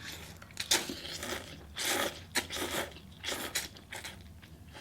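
A person biting into and chewing a crisp fried egg roll, with a run of crunches over about three seconds.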